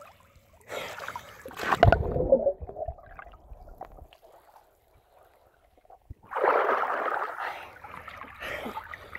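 Pool water heard through a Samsung Galaxy S8 Plus's microphone as the phone is dunked: splashing as it goes under, then muffled, nearly silent underwater sound, then a loud rush of splashing water about six seconds in as it comes back out.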